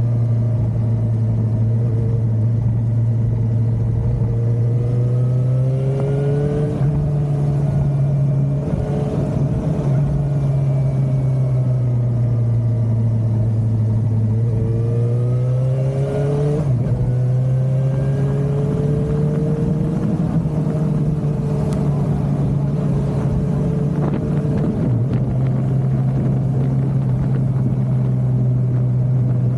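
Suzuki motorcycle engine running steadily while riding, its pitch rising twice and dropping back sharply each time.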